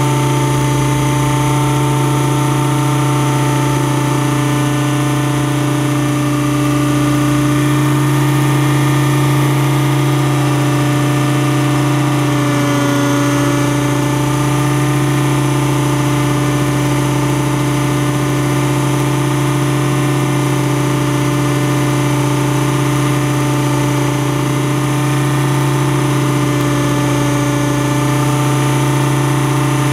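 Thunder Tiger Raptor E550 electric RC helicopter heard from a camera on its own canopy: motor, drive gears and rotor running at a steady pitch in flight, a close mechanical hum with a few fixed tones.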